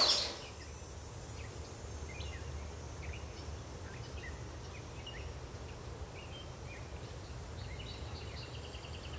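Faint countryside ambience: scattered short bird chirps over a low steady rumble, with a thin high-pitched hiss that comes and goes.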